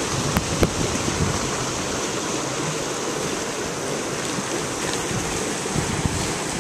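Steady rushing noise of outdoor ambience, with a couple of faint clicks about half a second in.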